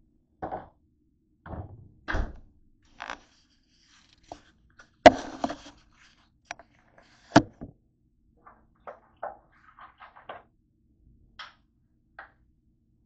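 Irregular knocks, taps and thunks of objects being handled and set down on a hard tabletop, the two loudest sharp knocks about five and seven and a half seconds in.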